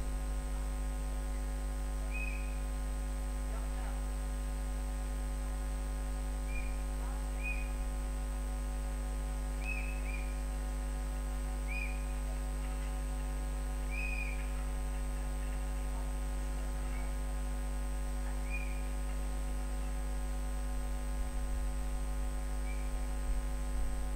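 Steady electrical mains hum and buzz made of many fixed tones, with faint short high chirps every second or two.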